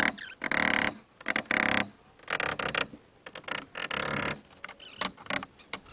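Work noise from building a wooden shelf, played back sped up: a rapid string of short bursts that start and stop abruptly.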